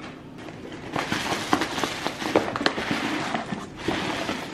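Cardboard shipping box being opened and its packing rummaged through by hand: a dense crackling rustle with many sharp snaps, starting about a second in.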